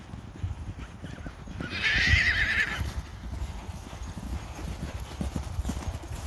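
Herd of mares and young horses galloping across grass, their hoofbeats a dull, uneven thudding. One horse gives a loud, wavering whinny a little under two seconds in, lasting about a second.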